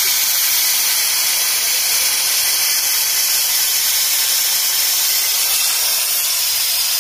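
Steady hiss of a workshop vacuum extractor drawing air and dirty engine-cleaning fluid through its hose into a clear collection canister.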